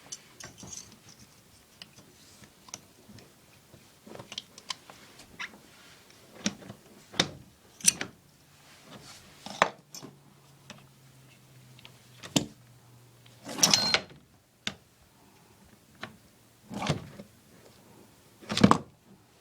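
Scattered taps, clicks and short scrapes of a small tool being worked inside a plumbing pipe to clear out calcium buildup.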